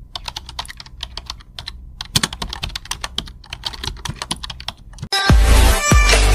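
Computer keyboard typing sound effect, a rapid irregular run of key clicks, with a short pause near the two-second mark. About five seconds in, loud electronic music with heavy bass hits cuts in abruptly.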